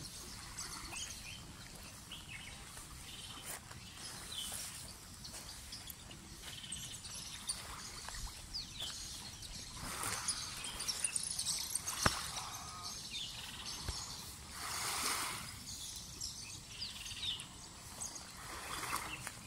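Outdoor birdsong ambience: assorted wild birds chirping and calling off and on over a steady low hiss, with a few swells of rushing noise and one sharp click about twelve seconds in.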